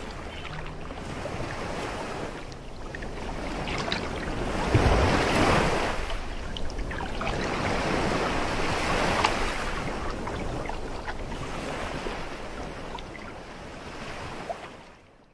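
Ocean surf: waves washing in and drawing back in a steady hiss. It swells loudest about five seconds in and again a few seconds later, then fades out at the end.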